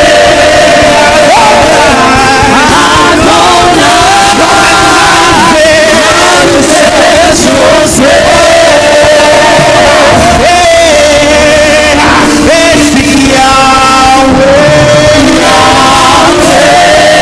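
Church worship music: a choir and congregation singing over a band, on long held notes that waver in pitch.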